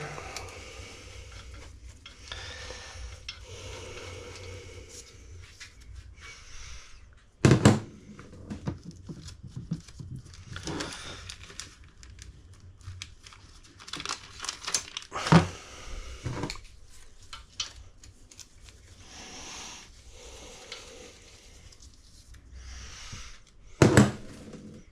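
Hand tools working on an engine block as the piston oil-jet squirters are taken out: rustling and scraping with scattered clinks, and four sharp metal knocks, the loudest about a third of the way in and near the end.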